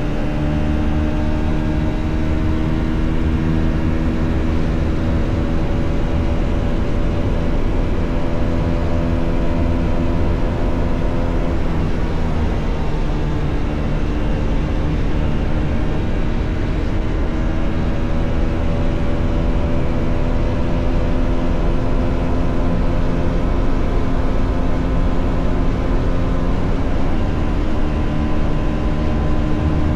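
Bajaj Pulsar NS400's single-cylinder engine running on the move, its note slowly climbing under throttle. It drops back about twelve seconds in and again near the end, as if on an upshift or easing off, then climbs again.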